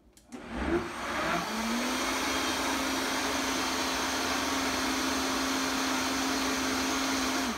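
Countertop blender blending a green smoothie. The motor spins up, rising in pitch over the first second or so, runs steadily at high speed, and shuts off near the end. It is a short blend, just enough to mix in the essential oils just added.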